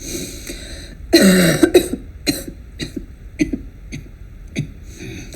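A person coughing, from a recorded sample: one long, loud cough about a second in, then a run of short coughs and throat-clearing sounds. It is judged to be an infectious cough.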